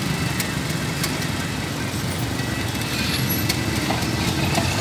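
Freight train rolling slowly past with a steady low rumble and scattered clicks, mixed with motorbike engines idling.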